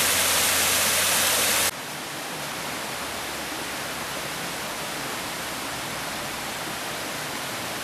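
Small waterfall pouring over mossy rocks: a steady rush of falling water that drops suddenly to a quieter, even rush of flowing stream water about two seconds in.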